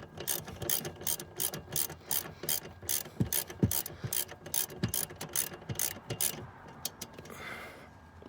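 Hand ratchet wrench with a Torx socket clicking in quick, even strokes, about three a second, as it tightens a battery hold-down bolt that is getting hard to turn. The clicking stops about seven seconds in, followed by a brief rustle.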